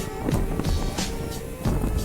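Background music with a steady beat, a light percussive stroke about three times a second over held tones and a low bass.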